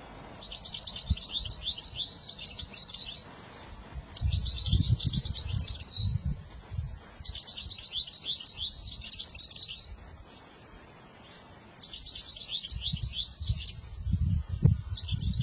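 A small songbird singing in bouts of a few seconds of rapid, high twittering, with short pauses between bouts. A low rumbling noise sits under the song about four seconds in and again near the end.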